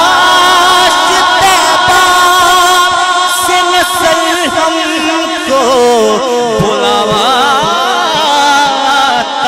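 A man singing a naat into a microphone. He holds one long drawn-out note for about five seconds, then breaks into wavering, ornamented runs up and down in pitch.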